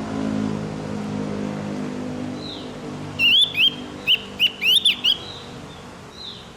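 Javan grey-throated white-eye (opior jawa) song: a quick burst of about eight loud, sharp whistled notes, each sweeping up or down, about three seconds in, with a soft single falling call before and after. A low engine-like hum fades away in the first few seconds.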